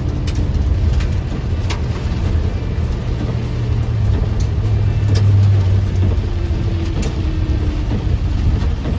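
Cab of a 1981 Chevrolet K10 pickup driving in heavy rain: a steady engine and road drone, with rain on the glass and a few sharp ticks.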